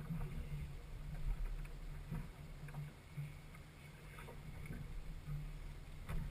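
Low steady rumble of a small fishing boat on the water, with a few faint knocks.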